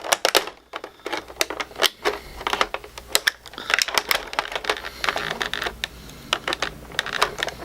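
Scissors snipping and plastic toy packaging crackling as an action figure is cut free of its plastic tray: an irregular run of sharp clicks and crinkles.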